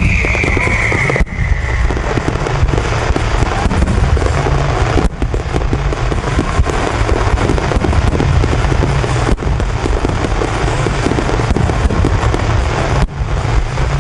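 Dense fireworks barrage: a continuous mass of bursting shells, deep booms and crackle. A falling whistle sounds in the first second or so, and the sound dips briefly three or four times.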